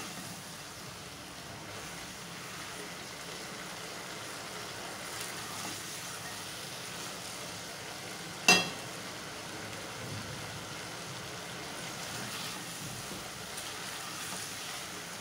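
Pieces of beef sizzling as they are browned in hot oil in an aluminium pot, stirred at times with a silicone spatula: the bhuna stage, when the meat changes colour before water goes in. A single sharp knock about eight seconds in.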